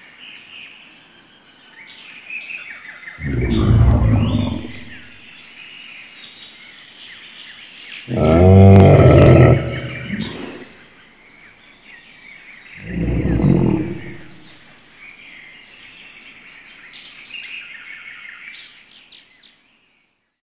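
Dinosaur roar sound effects from an augmented-reality show, three loud roars about four to five seconds apart, the middle one the longest and loudest. Bird-like chirping continues in the background throughout.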